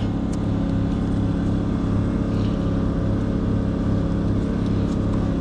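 An engine running steadily at a constant speed, with a regular low throb a few times a second.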